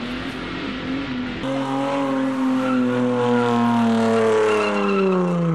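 A car engine held at high revs while the car drifts, its note sliding slowly down in pitch. A quieter engine runs in the first second and a half.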